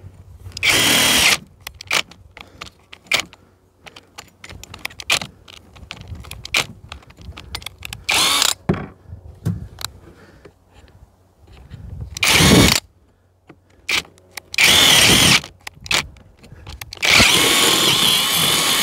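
Cordless drill running in five short bursts, with the last one, near the end, the longest. It is drilling holes through the metal outrigger arms, and clicks and knocks of handling fall between the bursts.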